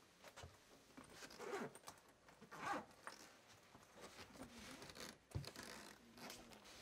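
A woman taking off her winter boots: faint rustling and scraping, with two short rasping sweeps and a soft knock of a boot on the floor about five seconds in.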